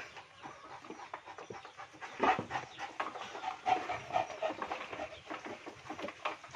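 Sow breathing heavily with irregular grunts, a louder one about two seconds in and a few short higher-pitched calls later, as she struggles to push during a difficult farrowing.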